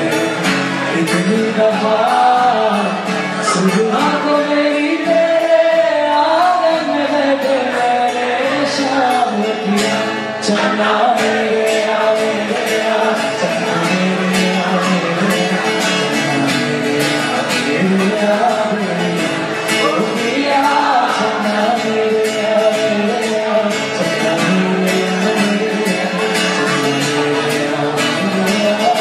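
A man singing to a Taylor acoustic guitar, strummed steadily.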